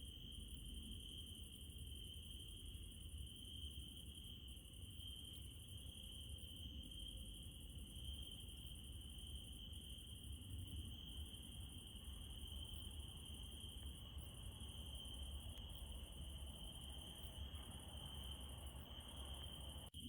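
Crickets trilling steadily and faintly at night, with a low rumble underneath.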